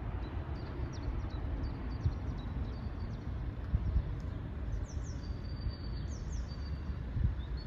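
Small birds chirping over a steady low rumble of outdoor background noise, with a run of quick falling chirps about five seconds in.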